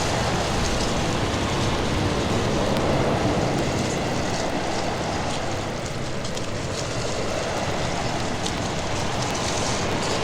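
A train running on rails: a steady, loud rumble and rattle of wheels and carriages, with faint ticking higher up.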